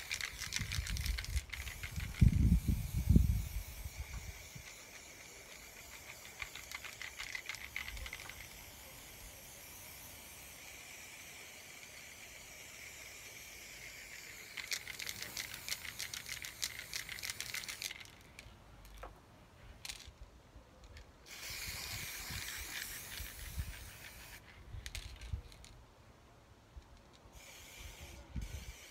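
Aerosol spray-paint can spraying in several hissing bursts of a few seconds each, with a low rumble about two to four seconds in.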